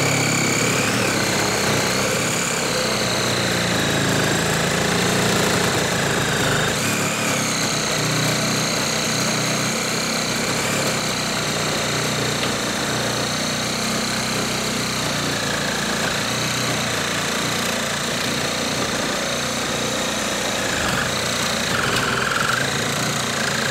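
Hart HPRS01 20-volt cordless reciprocating saw with a carbide-tooth blade cutting through a thick wooden post, the motor running steadily under load with a high whine over the rattle of the blade stroking through the wood.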